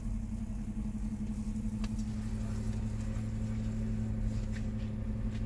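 Steady low mechanical hum with an even pitch, with a couple of faint clicks about two seconds in.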